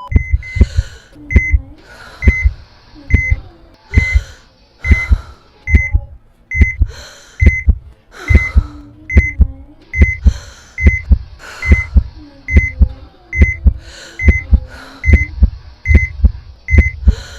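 Heart monitor beeping in a steady rhythm, one short high beep a little under every second, each with a loud double thump of a heartbeat, over heavy breathing. The regular beat, following a flatline tone, signals a restored heart rhythm.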